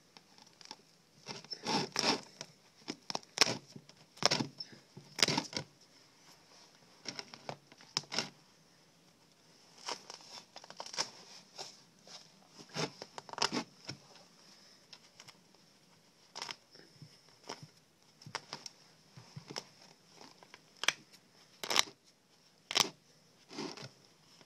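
Feathers being plucked by hand from a pheasant's breast: irregular short tearing rips, some louder than others.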